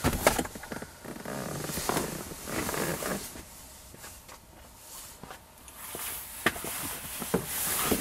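Handling noise from plastic car-interior trim: rustling and scraping, with scattered sharp clicks and knocks, several of them in the second half, as the center console is worked loose and lifted out.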